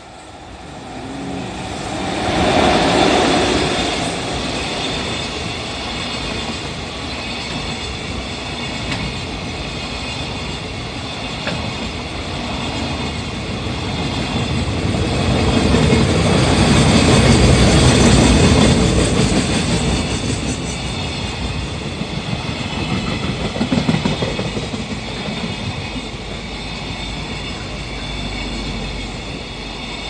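A freight train hauled by an EF66 electric locomotive running past at speed: the locomotive comes up and passes about two to three seconds in, then a long string of container flatcars rolls by, loudest again around the middle. A level-crossing warning bell rings steadily throughout.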